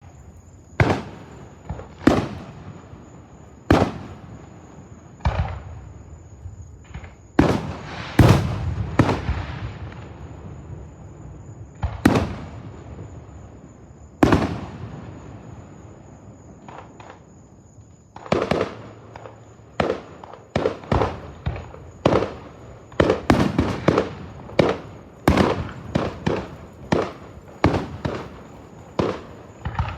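Sharp explosive bangs, each followed by a long rolling echo. They are a second or more apart at first, then come thick and fast from about 18 seconds in.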